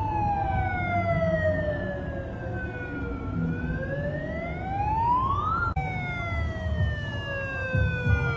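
A siren wailing in long, slow sweeps, its pitch falling for about three seconds and then rising. About six seconds in it breaks off and starts a new falling sweep. Under it runs the low rumble of car engines in a slow-moving convoy.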